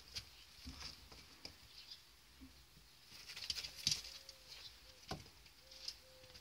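Baby Netherland Dwarf rabbits scurrying and hopping on wood shavings and hay: a dry, scratchy rustle with a few soft thumps, busiest about three to four seconds in.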